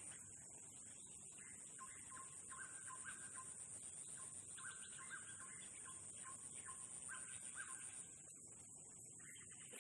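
Faint outdoor ambience: a steady high-pitched insect drone that breaks off near the end, with a bird calling in short repeated phrases.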